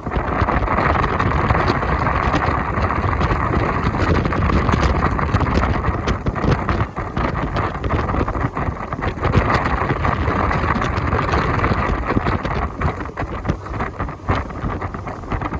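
Wind buffeting the microphone over the continuous rush and engine noise of a jet boat under way.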